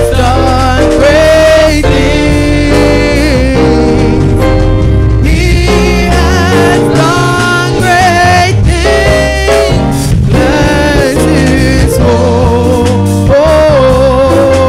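Gospel music: singing with a wavering vibrato over a band with a steady bass line.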